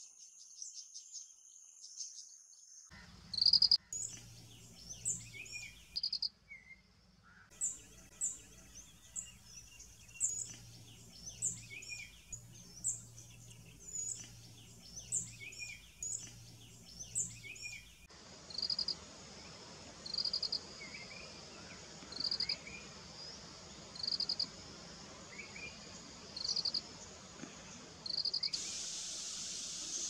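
Field ambience of insects and birds. A cricket-like insect gives short pulsed chirps about every second and a half, with scattered bird chirps between them. Near the end this gives way to a steady high insect buzz. The first few seconds are nearly silent.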